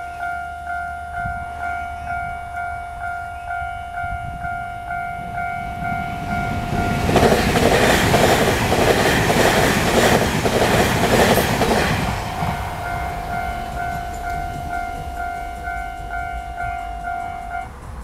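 Level-crossing warning bell ringing steadily, about two to three strikes a second. From about seven to twelve seconds in, a TRA TEMU2000 Puyuma Express electric train passes, its wheels and running gear loud enough to drown out the bell. The bell stops just before the end.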